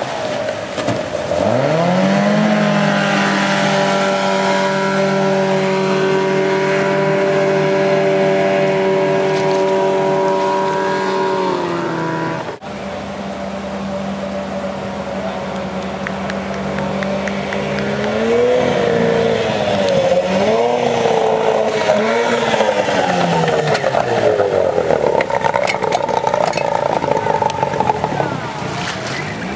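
Outboard motor of a racing power dinghy running at high revs through white-water rapids. Its pitch dips and climbs back about a second in, then holds steady. After a sudden break about twelve seconds in, the revs surge up and down several times as the boat bounces through the rapids, over the rush of the water.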